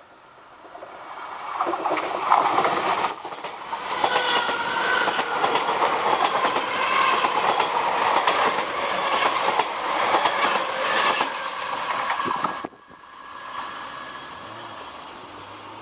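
DART electric commuter train passing close by: it builds up over the first two seconds, then runs loud with wheel noise on the rails and a wavering motor whine, and cuts off suddenly about three-quarters of the way through, leaving a quieter background.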